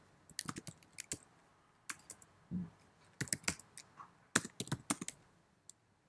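Computer keyboard being typed on: short, irregular clusters of key clicks, a few keystrokes at a time with pauses between, and one soft low bump about two and a half seconds in.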